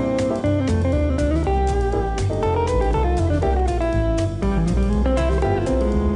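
Instrumental music led by guitar, with a melody over a steady bass line and a regular beat.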